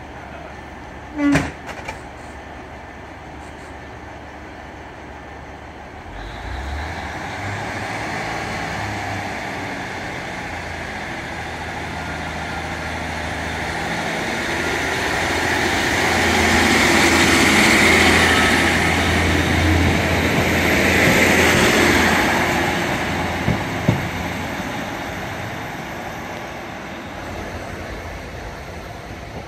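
Class 150 Sprinter diesel multiple unit pulling away from a platform: a short sharp sound about a second in, then its underfloor diesel engines throttle up about six seconds in with a steady low hum, loudest as the cars pass and fading near the end.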